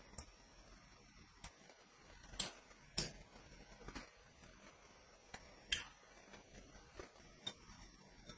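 Scattered small clicks and taps from hands handling two cylindrical battery cells joined by a spot-welded metal strip as the strip is bent and pulled at the welds. About nine sharp clicks, the loudest about three seconds in and again near six seconds.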